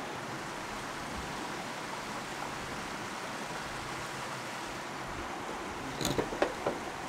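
Steady rushing of river water, with a short run of sharp clicks and knocks about six seconds in.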